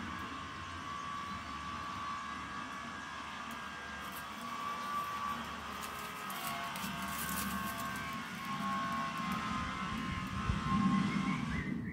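Steady drone of heavy machinery working outside, with a few held whining tones over a low hum. It cuts off abruptly near the end.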